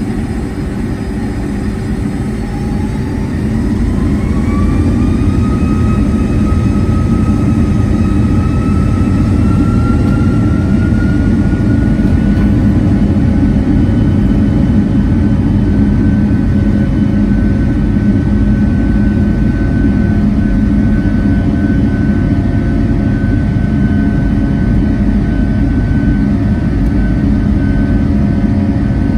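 Rolls-Royce RB211-535 turbofans of a Boeing 757-200 spooling up to takeoff thrust, heard from inside the cabin. A whine rises in pitch and the sound grows louder a few seconds in, then holds as a steady high whine over a low rumble through the takeoff roll.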